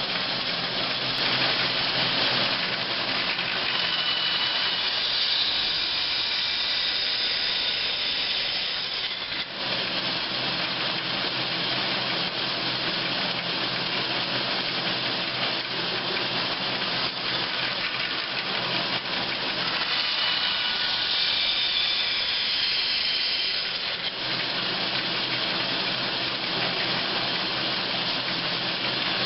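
Band saw running steadily while its blade cuts a series of kerfs into a wooden blank to form feather-board fingers, the bright cutting hiss swelling twice for several seconds, from about two seconds in and again about twenty seconds in.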